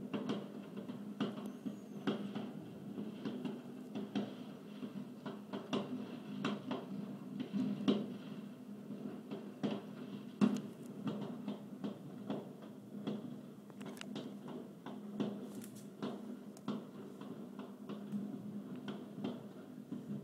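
Amateur New Year fireworks going off: an irregular stream of bangs and crackles, the loudest about eight and ten and a half seconds in, over a steady low hum.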